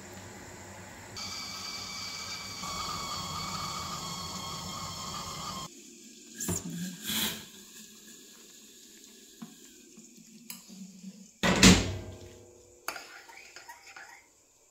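A steady hiss with a few faint whining tones that cuts off abruptly about six seconds in, followed by scattered clinks and knocks of kitchen dishes and cutlery, the loudest a sharp knock near the end.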